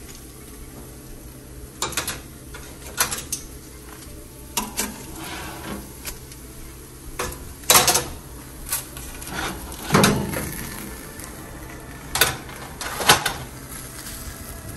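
Metal clanks and knocks of an oven rack being pulled out and a foil-lined sheet pan being lifted out and set down on an electric stovetop, about seven sharp knocks in all, with a heavy thud about ten seconds in, over a faint low steady hum.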